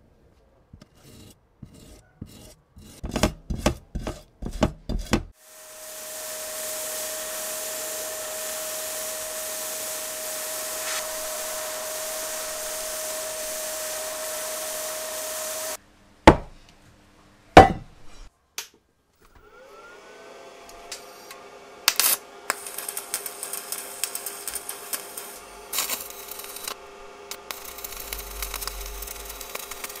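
Paint being scraped off a steel tricycle seat in a series of quick rasping strokes. Then comes a steady hiss with a whistling tone for about ten seconds and two sharp knocks. After that a blast cabinet's motor spins up, and abrasive blasting hisses and crackles against the bare steel.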